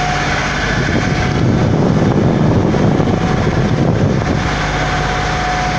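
Boat engine running steadily, with wind buffeting the microphone; the wind noise is heaviest in the middle few seconds.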